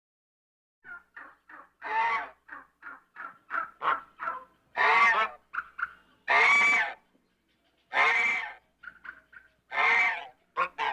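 Goose honking, starting about a second in: a run of short, clipped calls with about five louder, drawn-out honks among them.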